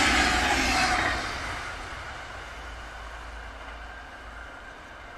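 Red DB Regio double-deck regional train running past, with loud wheel-on-rail noise that drops away sharply about a second in as the last coach goes by, then fades steadily.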